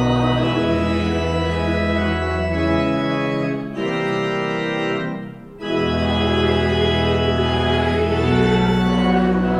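Organ playing slow, held chords over deep bass notes. In the middle the bass drops away and the sound thins and softens briefly, then the full chords return.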